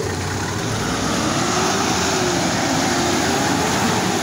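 Kenworth tractor-tanker's diesel engine running as it pulls past in traffic, over a steady wash of road and tyre noise. Its engine note wavers slowly up and down.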